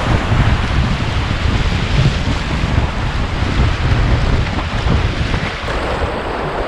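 Wind buffeting the microphone in uneven gusts, over a steady rush of moving river water.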